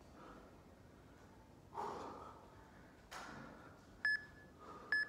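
Two short, identical electronic beeps about a second apart near the end: an interval timer counting down to the end of a work interval. Before them come two short, sharp exhalations.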